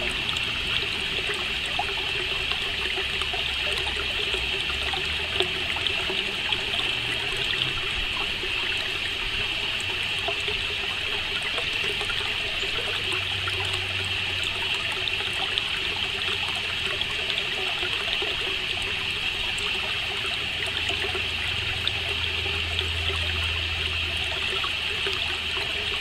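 Steady hissing, rushing background noise with a faint low hum and a few small ticks.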